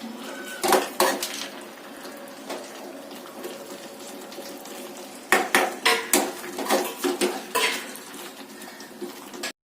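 A cooking utensil scraping and knocking against a pan as chicken pieces are sautéed in gravy: a couple of strokes about a second in, then a quicker run of them from about five to eight seconds. The sound cuts off suddenly near the end.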